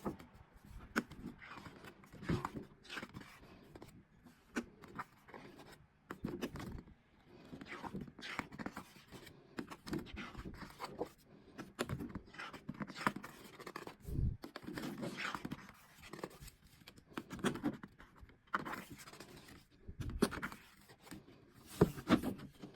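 Hands unboxing a paper posterbook: irregular rustling, scraping and small knocks of paper and packaging being handled.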